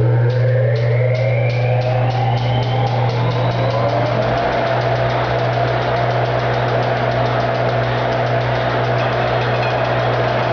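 A 1912 Crescent 18-inch planer, belt-driven by a 5 hp GE electric motor, spinning up to speed after switch-on: a rising whine that levels off into a steady running tone about four and a half seconds in, over a constant hum. The clips on its drive belt click faster and faster until the clicks run together.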